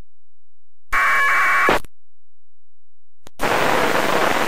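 Amateur radio receiver static between transmissions. Dead silence is broken by a short burst of noise about a second in, then a steady radio hiss opens up about three and a half seconds in as the channel opens.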